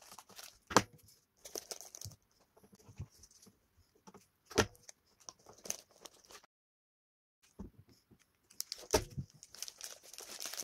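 Plastic snack wrappers crinkling and rustling, with a few sharp knocks and clicks as packets and a small juice box are handled and set into a cardboard basket. The sound drops out completely for about a second in the middle.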